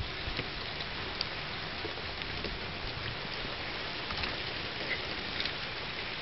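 Freezing rain pattering steadily on a wooden deck and snow, with scattered faint ticks of individual drops.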